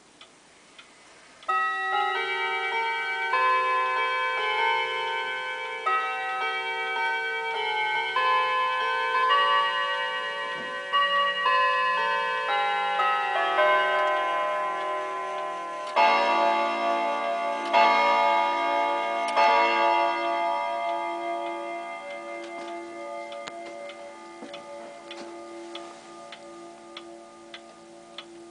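Jawaco Lourdes Black Forest pendulum wall clock chiming a melody on its gong rods, a run of ringing overlapping notes, then striking the hour three times with lower, louder strokes that ring on and slowly fade. The pendulum ticks faintly underneath.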